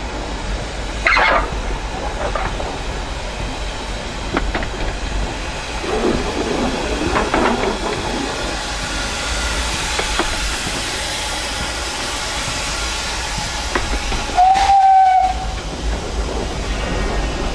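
Two-foot gauge Orenstein & Koppel steam locomotive heard from the cab, running steadily with hiss and occasional knocks, and one short steam whistle toot near the end.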